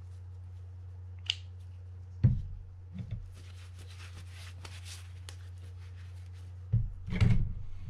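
Handling sounds at a work table: a sharp knock as the reel's gear assembly is set down, then a paper towel rubbed over a gloved hand to wipe off grease, and a few more knocks near the end. A low steady hum runs underneath.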